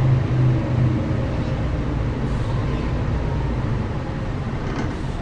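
Mercedes-Benz O405GN² articulated city bus running, its diesel engine making a steady low drone.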